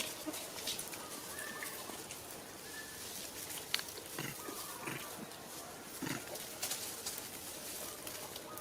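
Three short, low animal calls about a second apart in the middle, with faint high chirps early on and a single sharp click just before them.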